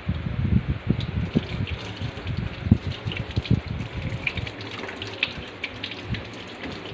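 Tap water running into a sink while hands are washed under it, with irregular splashing.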